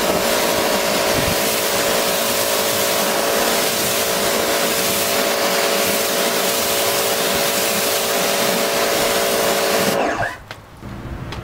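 Pressure washer running: a steady motor and pump hum under the loud hiss of the water jet rinsing soap off a painted car bonnet. It cuts off abruptly about ten seconds in.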